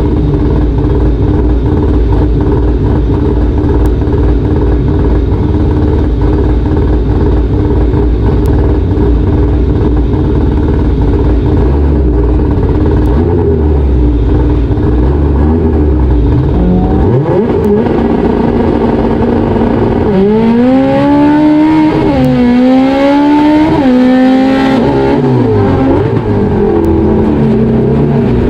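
Honda K24 four-cylinder race engine running loudly at a steady pitch for about the first seventeen seconds, then revved: its pitch sweeps up and, from about twenty seconds in, climbs and drops back three or four times before holding a steady note near the end.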